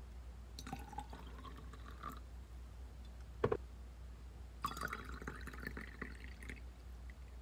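Water poured into a tall drinking glass twice: first hot water from a kettle, then water from a plastic pitcher. A single sharp knock comes about halfway, between the two pours.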